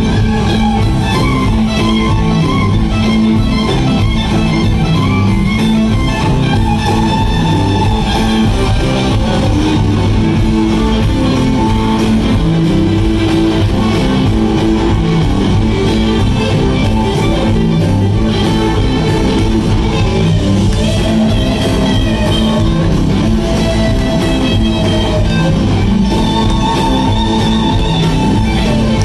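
Live band playing an instrumental: electric guitars and drums, with a lead guitar line of held, bending notes over a steady beat.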